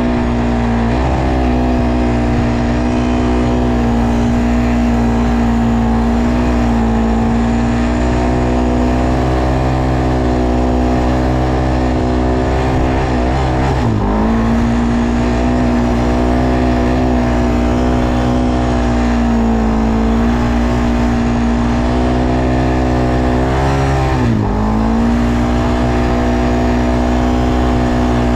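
ATV engine running at a steady, even speed, its pitch held constant. The pitch dips briefly and climbs back twice, about halfway through and near the end.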